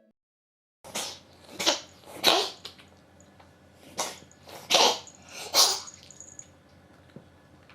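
A cat sneezing six times, short sharp sneezes in two quick groups of three. The owner calls them strange sneezes, as if something had got into its nose.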